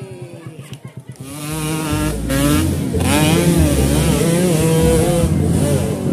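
Trail motorcycle engine revving hard on a steep dirt hill climb, its pitch rising and falling with the throttle. It starts quiet and low, then comes in loud about a second and a half in.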